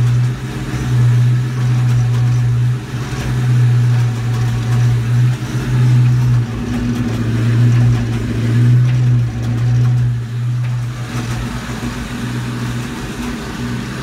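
Car engine running in gear, driving the rear axle with the rear wheels lifted off the ground: a steady low hum that swells and eases in loudness every second or two.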